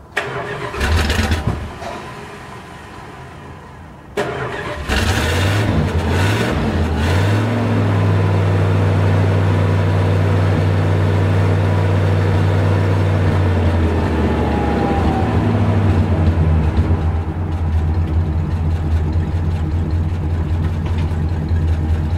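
1969 Chrysler Newport's 383 big-block V8 starting from cold. A first burst of firing about a second in fades away. The engine is cranked again after about four seconds, fires with a few revs, and settles into a steady, even idle.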